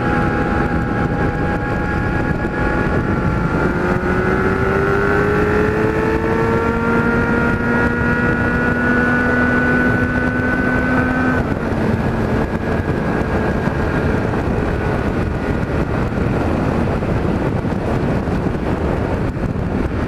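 Kawasaki Z1000 inline-four with an aftermarket 4-into-1 exhaust and its db-killer baffle fitted, heard from the saddle while riding. The engine note climbs under acceleration from about four seconds in, holds steady, then falls away about eleven seconds in as the throttle closes, leaving steady wind and road noise.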